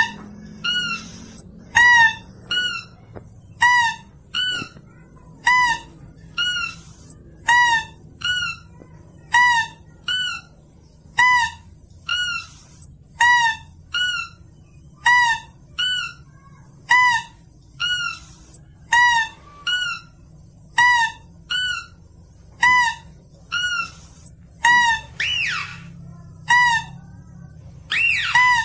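Mouse-deer (kancil) lure call: a short, shrill squeak followed by a slightly higher one, the pair repeated about every two seconds in a steady loop. Near the end a couple of rising squeals break in.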